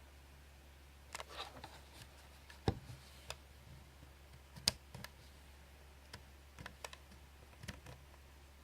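Irregular plastic clicks and knocks, about a dozen spread out with the loudest near three and five seconds in, the sound of a small alarm clock's buttons and switches being worked by hand. A steady low hum runs underneath.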